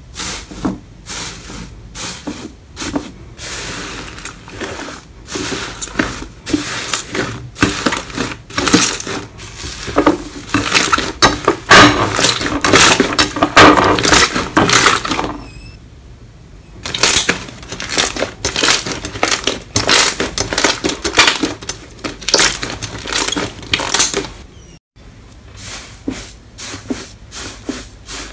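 Hands pressing, squeezing and kneading slime in a series of clips: a dense run of crackling, popping and squishing clicks. At first a slime covered in crumpled red metallic foil crinkles as it is pressed. The sound dips about halfway through, and cuts out briefly near the end as one clip gives way to the next.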